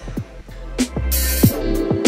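Background music with a beat: regular drum hits over a bass line and sustained notes, with a short burst of hiss about a second in.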